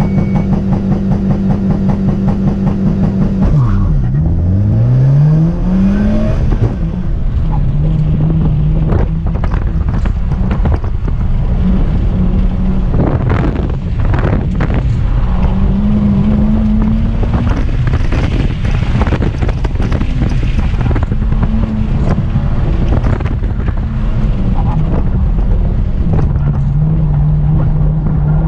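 Car engine held at steady revs on the start line, then sagging sharply about four seconds in as the car launches, a bogged launch, before climbing back up. For the rest of the run it is driven hard through a cone course, the revs rising and falling with each burst of acceleration and braking.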